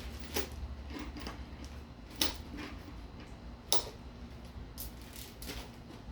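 Scattered metallic clicks and knocks of hand tools and engine parts being handled during a VG33E V6 engine teardown: three sharper knocks spaced about a second and a half apart, then a few softer clicks near the end, over a steady low hum.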